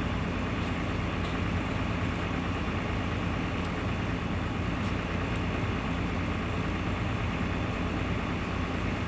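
Hitachi EX355 demolition excavator's diesel engine running steadily at an even speed, with a steady hum and no revving.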